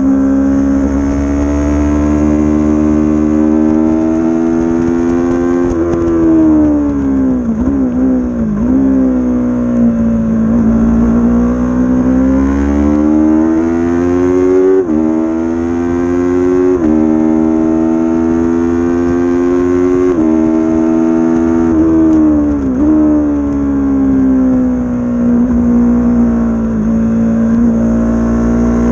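A 300-class race motorcycle's engine at racing speed. It slows with falling revs and throttle blips on downshifts about eight seconds in and again near 23 seconds. Between them it pulls hard, its pitch dropping sharply at each of three quick upshifts, then holds steady through a corner.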